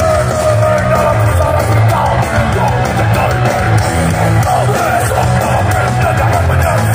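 Heavy metal band playing live through a concert PA: electric guitars, bass and drums, with a yelled lead vocal.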